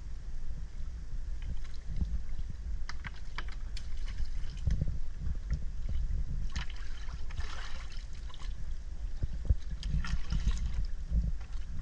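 Water lapping and splashing around a wooden dugout canoe as a fishing line and plastic-bottle float are handled, with small knocks and clicks. There is a steady low rumble underneath. Splashing and dripping grow louder about six and a half seconds in, and again around ten seconds in, as the line and bottle are pulled from the water.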